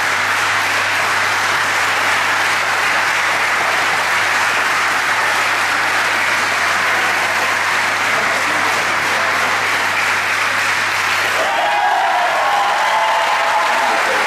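Audience applauding steadily in a large hall. About eleven seconds in, the clapping suddenly drops away and a few raised, cheering voices take over.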